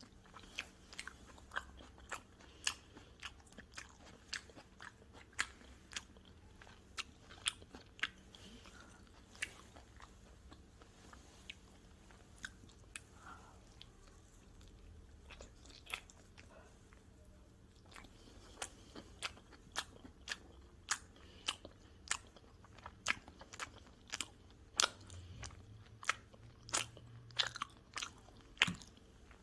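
Close-miked chewing and crunching of pizza: a run of sharp, crisp crunches at an irregular pace, thinning out in the middle and coming thick and fast again toward the end.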